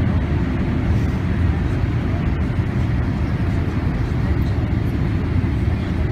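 Steady cabin noise of a Boeing 787 airliner on approach, heard from a window seat over the wing: a constant low rumble of the engines and rushing air.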